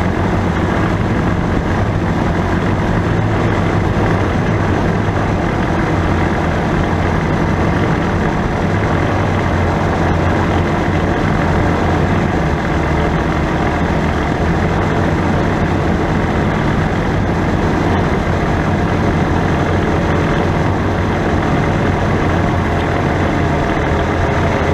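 2017 Polaris General UTV running steadily, engine and drivetrain, with no change in pace. Its driveline now turns a CV-joint style prop shaft, the fix for the differential noise, and runs much quieter.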